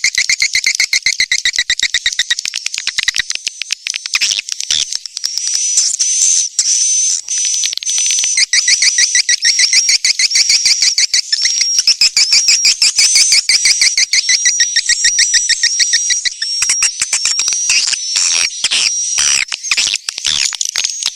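Swiftlet call track: a dense, steady twittering of edible-nest swiftlet chirps, many short high calls per second. It is the kind of calling sound that swiftlet farmers play at a bird house to lure the birds in to nest.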